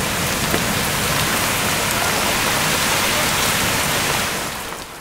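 Heavy storm: rain pouring and strong wind blowing through trees, a loud, steady, dense hiss that fades out near the end.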